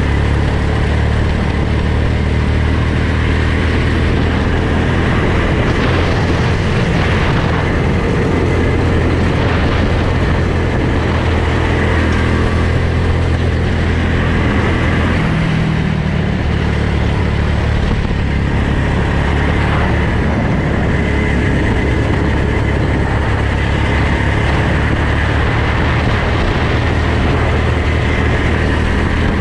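Go-kart engine running hard on track, heard from the driver's helmet camera. Its note rises and falls as the kart comes off and back on the throttle, with a clear change in pitch about halfway through.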